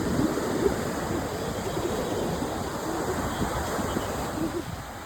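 Sea surf washing onto a sandy beach: a steady rushing noise that eases slightly near the end.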